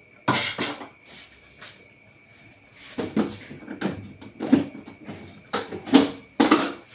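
Kitchen handling noise as food containers are readied for storing cooked vegetables: a sharp clatter about half a second in, then a run of knocks and scrapes from about three seconds in.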